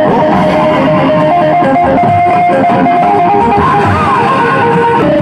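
Loud music with a prominent electric guitar, blasting from a small stacked PA loudspeaker rig played at high volume; a bent guitar note about four seconds in.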